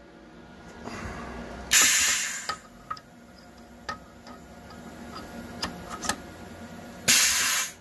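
Pneumatic tool release on a CNC mill spindle, hissing in two short air blasts, about two seconds in and again near the end, as the tool holder is released and seated. Light metallic clicks and taps of the holder being handled come in between.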